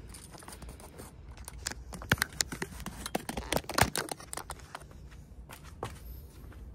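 Scrapes, rustles and light clicks from handling a fabric-backed foldable solar panel blanket as it is shifted over stone paving, busiest through the middle, with the loudest knock about four seconds in.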